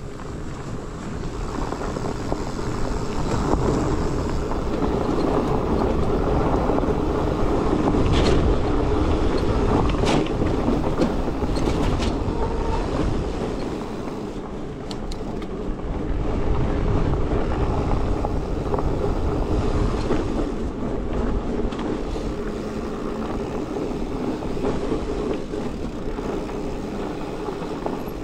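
Mountain bike rolling over a rough trail with wind buffeting the microphone: a steady rush of tyre and wind noise, with a few sharp clicks and knocks from the bike.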